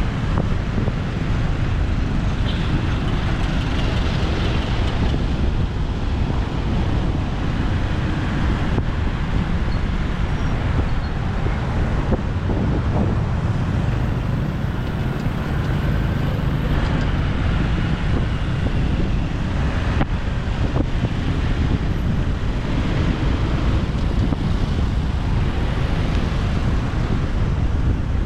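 Motorbike engine running while riding in city traffic, with wind buffeting the microphone: a steady, loud rumble.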